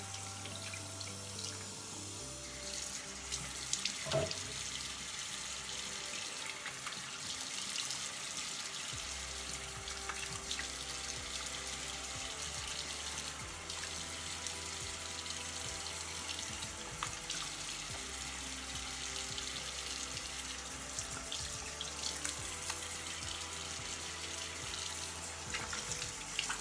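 Tap water running steadily into a sink, with small splashes as a face is rinsed of foaming cleanser.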